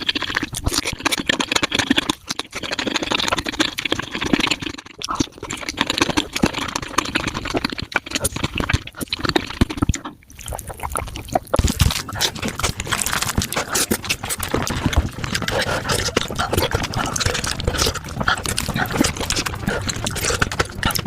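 Eating sounds of spicy tofu soup sped up about five times: wet slurps, smacks and chewing clicks running together into a fast, dense chatter, with a short break about ten seconds in.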